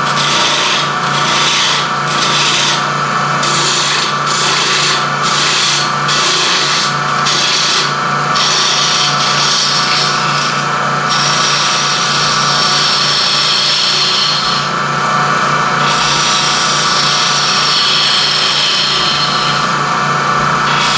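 Wood lathe running with a steady hum while a turning tool cuts coves into a small spinning wood blank. At first the tool scrapes in short repeated passes, about one or two a second; from about eight seconds in it makes longer continuous cuts.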